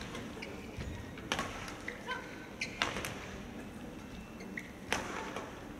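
Badminton rally: rackets hit the shuttlecock three times, sharp cracks about one and a half to two seconds apart. Short squeaks of court shoes come between the hits.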